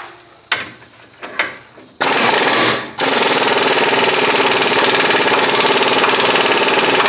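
Impact wrench hammering in a few short bursts, then running continuously from about three seconds in. It drives the screw of a ball joint press, pushing a new lower ball joint into the control arm.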